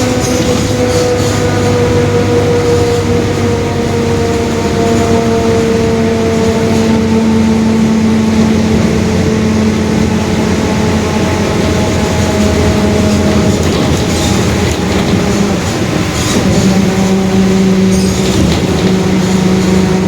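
Mercedes-Benz OF-1721 bus running at road speed, its differential droning with a steady gear whine over the engine. The whine slowly falls in pitch for the first half as the bus eases off, then holds steady. The droning is the sign of a noisy, worn differential.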